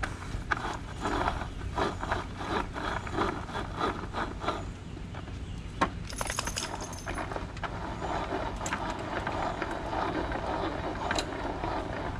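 Hand-operated manual food processor chopping tomatoes and jalapeños: quick rhythmic strokes of the blades, about three a second, then a sharp click about six seconds in, followed by steadier whirring chopping.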